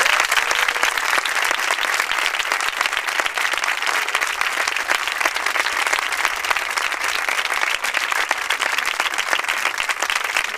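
Crowd applauding: steady, dense clapping.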